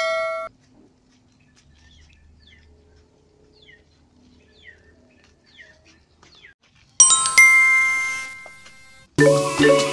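A chime sound effect ends just after the start, then a quiet stretch with faint short bird chirps. About seven seconds in a bright bell-like chime rings out and fades, and marimba music starts near the end.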